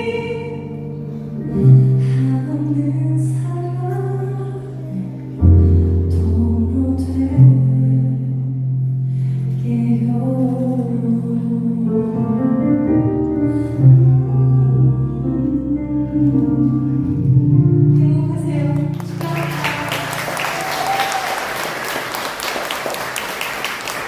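A song sung with instrumental accompaniment, held notes and a moving vocal line. About nineteen seconds in it ends and an audience breaks into applause.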